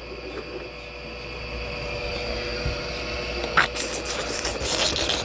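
Handling noise: rustling and scraping of the phone and bedding as the phone is moved, in several short bursts in the second half, over a steady faint hum.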